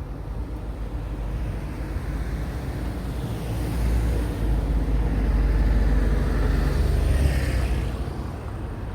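A vehicle passing close by. Its rumble swells to a peak around six seconds in, then eases off.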